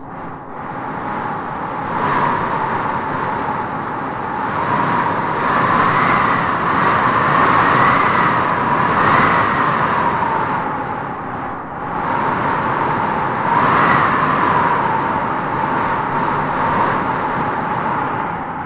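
Wind howling in gusts: a wavering, whistling moan over a steady rush, swelling and easing several times.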